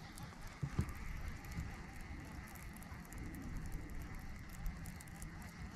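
Fishing reel being wound steadily during a retrieve: a faint crackly whir with small ticks, which stops near the end.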